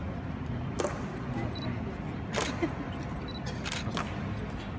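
Marching honor guards' boot heels striking the marble floor: a few sharp, echoing clacks spaced a second or more apart, two in quick succession near the end, over a low murmur of the crowd.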